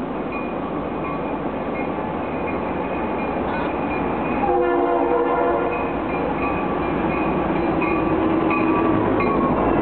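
Freight train with a CSX SD60M locomotive approaching, its Conrail-vintage Leslie S3L air horn sounding a chord about halfway through and again near the end, while the locomotive bell rings steadily over the rumble of the engines and cars, growing louder as it nears.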